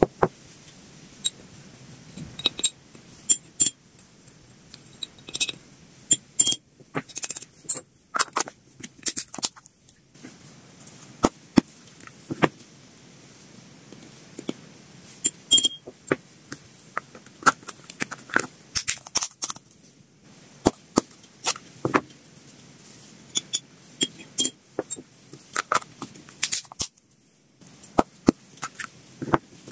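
Irregular clicks and taps of small lidded plastic food containers being handled, opened and set down, with a small spoon scooping and scraping powder inside them.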